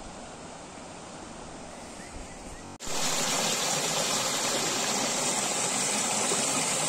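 Wind buffeting the microphone at first. After an abrupt cut about three seconds in comes a louder, steady rush of shallow stream water tumbling over stones below a waterfall.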